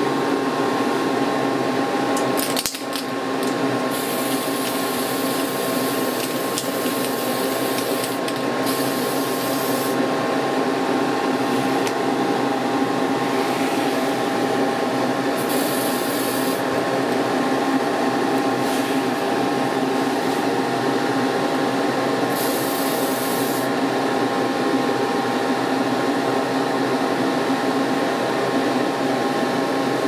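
A small electric motor runs steadily with a humming whine, and four short hisses break in over it.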